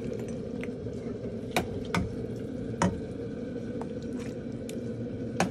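A metal spoon moving through a plate of egusi soup, knocking against the dish in about four sharp clicks, over a steady low hum.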